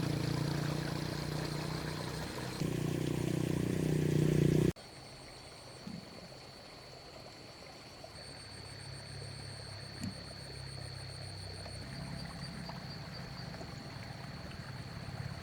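A motor running steadily, its sound shifting about two and a half seconds in, then cut off abruptly at about five seconds. After it, a quieter steady thin high tone over a faint low hum.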